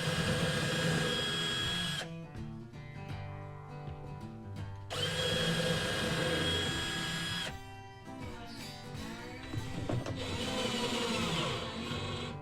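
An electric drill's motor whine in three runs. Each run holds steady and cuts off, and the last one winds down in pitch. Acoustic guitar music plays underneath.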